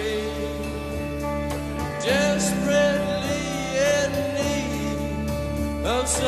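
Music: a slow song with sustained chords and a sung vocal line that comes in about two seconds in and again near the end.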